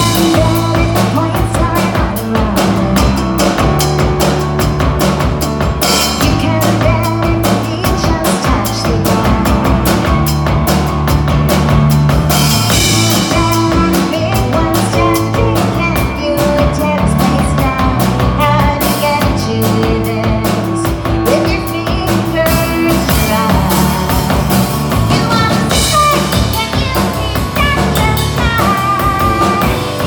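A small rock band playing live on stage: drum kit with bass drum and rimshots over a steady electric bass line and keyboard.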